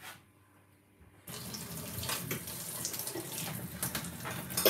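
Water running steadily from a kitchen tap, starting about a second in, with a sharp knock near the end.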